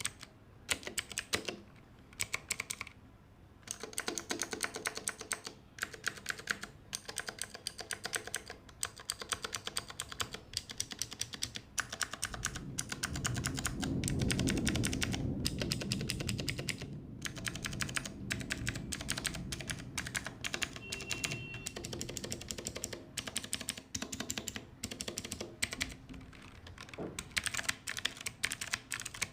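Typing on an Ajazz AK33 mechanical keyboard with clicky blue switches: a steady, fast stream of key clicks. A low rumble rises under the typing about halfway through and fades a few seconds later.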